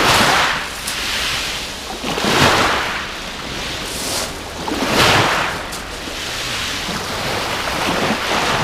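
Waves breaking and washing on a shingle beach, with four surges of surf noise about two and a half seconds apart.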